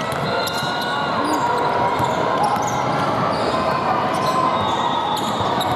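Basketball game in a gym: a ball bouncing on the court floor amid the chatter of players and spectators, echoing in the large hall.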